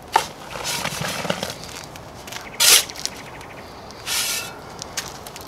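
Shovel scooping loose soil and dumping it back into the hole around a copper ground rod, with three short scrape-and-pour rushes of falling dirt, the loudest about midway. The dirt drops into water still standing in the hole from the water method of sinking the rod.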